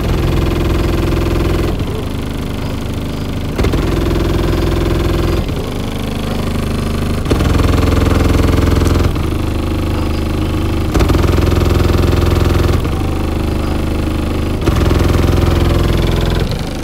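Bass-heavy music played very loud through a single 24-inch Sundown Nightshade subwoofer in a ported box tuned to 23 Hz, heard from outside the closed pickup truck's cab. Deep bass notes change about every two seconds.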